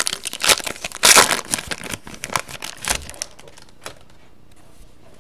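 Wrapper of a trading card pack crinkling and tearing as it is opened by hand: a dense run of crackles that thins out after about three seconds, then a single click near the end.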